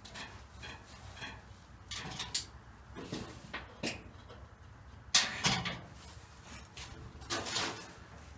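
Scattered knocks, clicks and light rattles of hands working on the car, the loudest cluster about five seconds in and another near the end.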